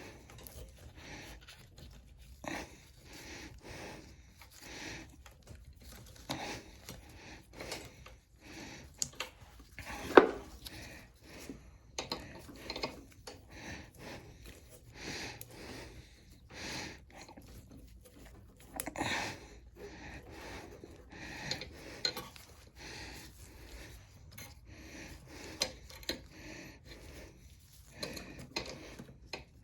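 Hands working with tools and small metal parts on a mower's fuel line: irregular clinks, rubs and clicks, with one sharp knock about ten seconds in, and breathing close to the microphone.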